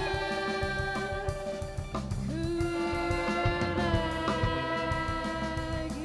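Jazz ensemble playing live: long held melody notes that change pitch about two seconds in and again near the end, over drum kit and bass.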